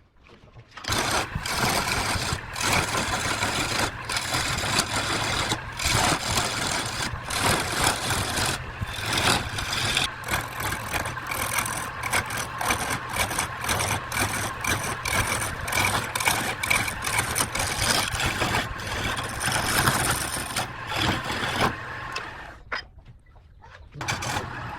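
Wood lathe running, with a turning tool scraping against the spinning workpiece under a steady motor hum; it starts about a second in and dies down near the end.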